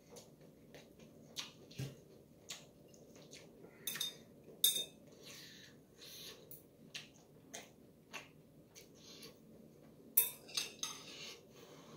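Metal chopsticks clinking against a stainless steel pot and a ceramic bowl as ramen noodles are served out: a run of light scattered clinks, with the sharpest ones about four to five seconds in and again near ten seconds.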